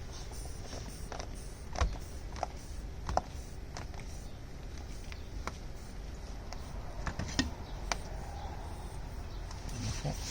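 Scattered light clicks, taps and creaks of a locksmith's lockout tool being worked in through a car's door frame, over a steady low hum. A few knocks stand out, about two and three seconds in and again near the end.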